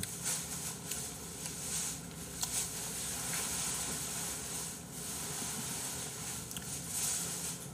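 Steady hiss of background noise, with a few faint small clicks.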